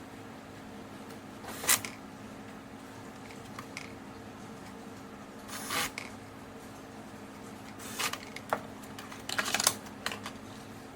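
Scattered sharp clicks and short clatters of hard parts being handled, a few at a time and bunched toward the end, over a steady low hum.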